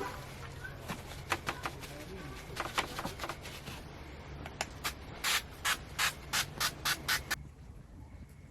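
Paper tissue rubbed over a cast-iron griddle in wiping strokes: scattered at first, then a quicker, even run of about three strokes a second that stops abruptly near the end.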